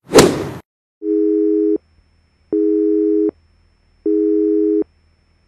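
A short electronic swish, then a steady telephone-like electronic tone beeping on and off three times, each beep just under a second long, with pauses about as long between them.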